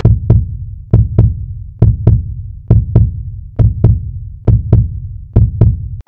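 Heartbeat sound effect: deep double thumps, lub-dub, each with a sharp click on top, repeating about every 0.9 s, seven beats in all.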